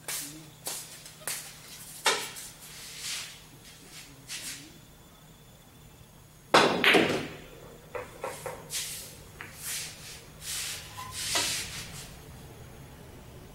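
Pool balls and cue on a 9-ball table. A shot is played about six and a half seconds in, the loudest crack of a cue striking and balls colliding, amid scattered lighter clicks and knocks, over a low steady hum.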